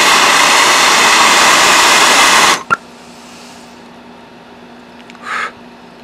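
Handheld gas torch burning with a loud, steady hiss, cut off suddenly about two and a half seconds in, followed by a click.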